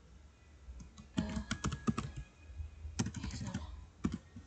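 Typing on a computer keyboard: short clusters of key clicks about a second in and again about three seconds in, with quiet gaps between.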